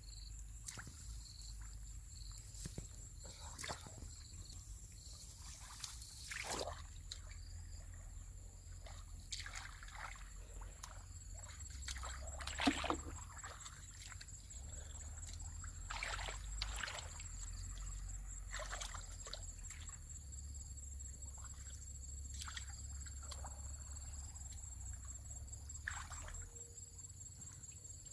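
Water sloshing and trickling, with scattered short splashes and knocks, the loudest about halfway through, over a steady low rumble.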